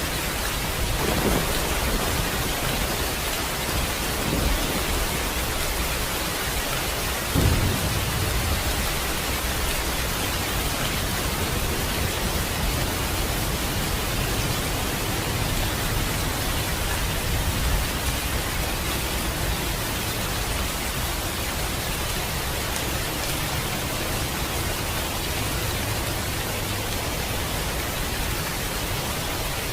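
Steady rain hiss, with several low rolls of thunder, the strongest about seven seconds in.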